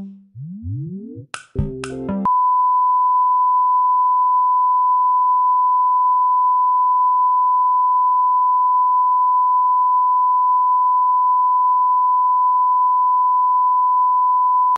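A brief tail of electronic intermission music with two rising sweeps, then a steady single-pitch broadcast test tone that holds without change: the reference tone that goes with colour bars when a TV station signs off.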